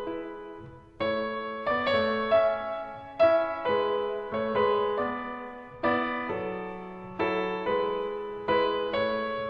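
Background music: piano (or electric piano) playing slow chords and melody notes, each struck and left to ring and fade.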